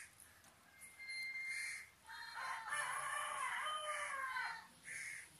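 Bird calls: one long, pitched call lasting about two and a half seconds from about two seconds in, with shorter calls before and after it.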